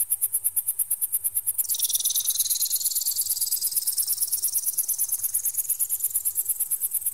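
Electronic bird-repeller sound: a very high-pitched tone pulsing about ten times a second. About one and a half seconds in, a sweeping tone joins it, dropping sharply and then gliding slowly upward to the end.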